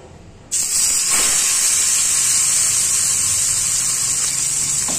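Masala-marinated pomfret sizzling in hot oil in a frying pan: a loud, steady hiss that starts suddenly about half a second in as the fish goes into the pan.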